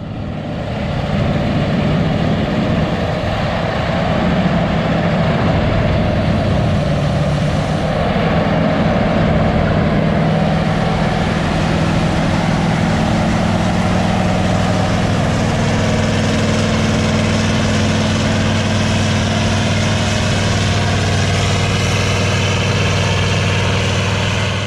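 Deutz V8 diesel engine of a Gleaner R62 combine running steadily.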